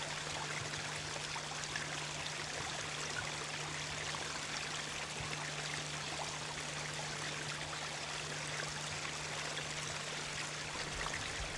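Steady rushing hiss with a faint low hum underneath, even throughout with no distinct events.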